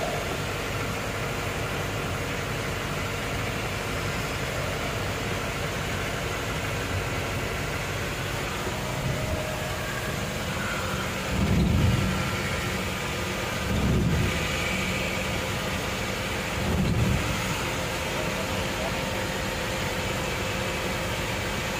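Steady road and engine noise from inside a moving vehicle on a rain-soaked highway, with three short low rumbles a few seconds apart around the middle.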